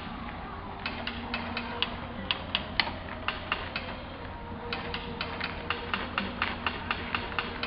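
Solenoid-driven mechanical woodpeckers, geometric acrylic birds, pecking wooden percussion boxes in quick runs of sharp knocks, about four a second. The knocking stops for about two seconds in the middle, then starts again.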